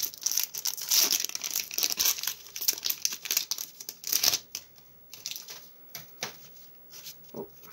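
Foil booster-pack wrapper crinkling and tearing as it is handled and opened, dense for about the first four and a half seconds, then only a few scattered crinkles.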